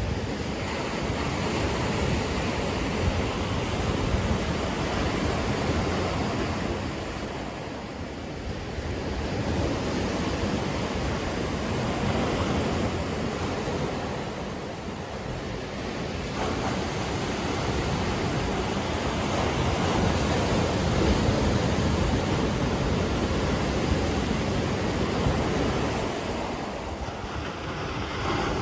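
Ocean waves breaking on the shore, a continuous rush of surf that swells and ebbs every several seconds.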